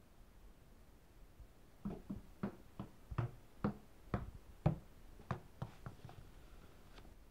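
A small rubber ball bouncing down a staircase: about a dozen separate thuds at uneven intervals, starting about two seconds in and dying away over roughly four seconds.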